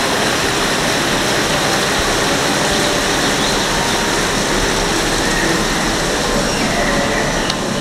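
Steady, even rushing noise of aquarium hall ambience, with no distinct events.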